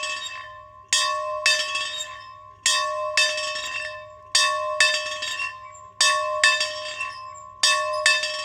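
A bell being rung in a steady ding-dong rhythm: two quick strokes about every second and three quarters, five pairs in all. Each stroke rings on with a clear tone and bright high overtones that fade before the next pair.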